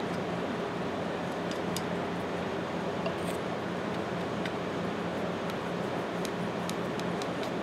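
A steady mechanical hum with a constant low tone and an even hiss, under a few faint, scattered light ticks as a small paintbrush dabs gun bluing onto the steel pliers.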